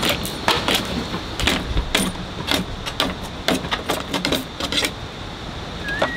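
Repeated sharp knocks of a tool striking something hard, irregular, about two to three a second, over a steady thin high-pitched tone.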